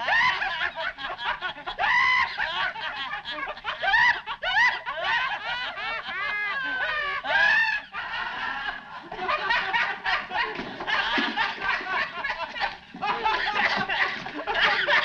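Several men laughing uncontrollably in long, unbroken fits of high, repeated laughs, the hysterical laughter of men overcome by laughing gas.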